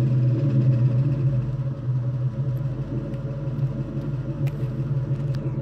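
1999 Ford Mustang GT's 4.6-litre V8 idling steadily through its exhaust, heard close behind the tailpipes.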